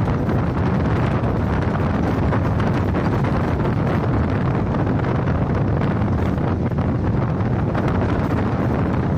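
Wind buffeting the microphone: a steady, loud rushing noise without pauses, heaviest in the low range.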